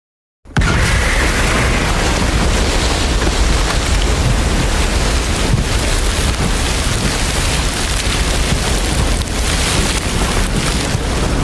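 Destruction sound effect: a loud boom sets in suddenly about half a second in and carries on as a dense, continuous rumble with a hissing, crackling top for about eleven seconds, beginning to fade near the end.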